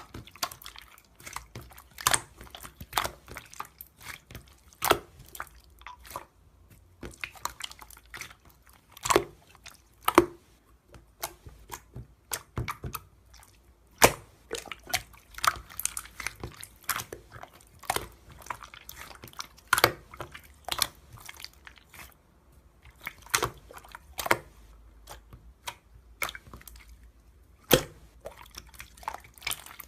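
Close, irregular wet clicks and squishes, several a second at some moments and sparse at others.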